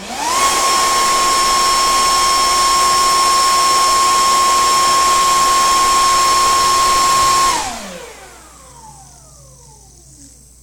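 Cordless leaf blower switched on and blasting air at a fidget spinner. Its motor whine rises quickly to a steady high pitch over a loud rush of air. After about seven and a half seconds it is switched off, and the whine drops in pitch and fades as it winds down.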